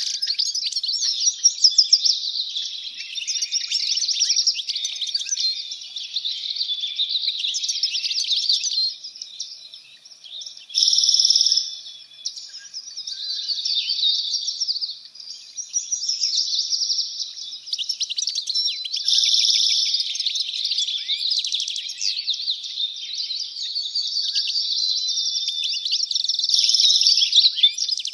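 Many small songbirds chirping and singing together in a dense, continuous high-pitched chorus, with brief louder steady trills about eleven seconds in and again near the end.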